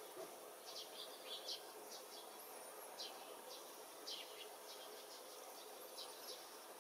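Faint, scattered short chirps of small birds over a steady outdoor background hiss, with a couple of very high, thin calls.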